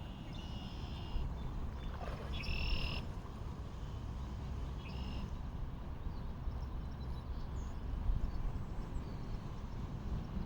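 Geese calling: three short calls, each under a second, over a steady low rumble.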